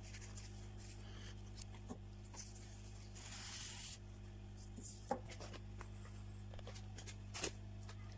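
Small clicks and a brief scraping, rubbing noise of hand tools handling a phone on a repair bench, over a steady low electrical hum.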